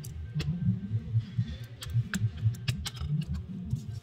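Light plastic clicks and ticks as the parts of a disassembled Samsung A04 phone are handled and its inner cover is lifted off, a dozen or so sharp clicks, most of them in the middle of the stretch. Under them runs a low, uneven rumble.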